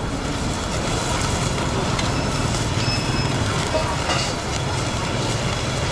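Steady roar of open gas burners, with beef and egg sizzling on hot cast-iron plates.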